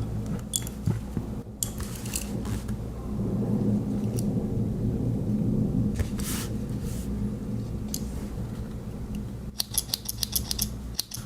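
Victorinox Swiss Army knife being handled: scattered sharp metal clicks as its tools are worked, with a quick run of clicks near the end, over a steady low hum.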